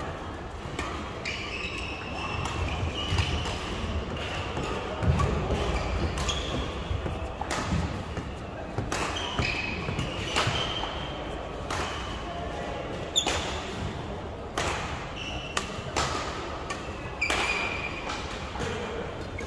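Badminton rackets striking a shuttlecock in rallies: sharp, irregular hits, with short high squeaks of court shoes on the floor between them.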